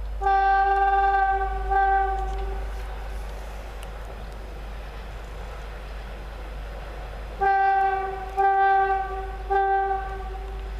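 Electric freight locomotive's horn, one steady tone, sounding a long blast then a short one, and about five seconds later three short blasts, over the low rumble of the approaching train.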